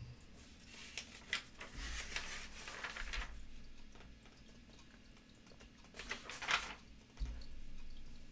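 Pages of a paper comics catalog being turned by hand: two rustling page flips, about two seconds in and again about six seconds in, then a soft low thump near the end.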